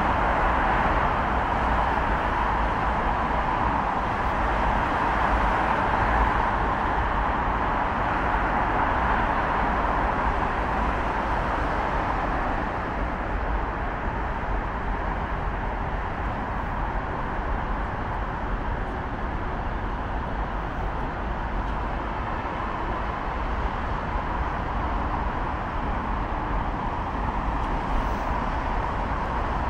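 Steady city street traffic: a continuous wash of passing cars, easing off slightly after about twelve seconds.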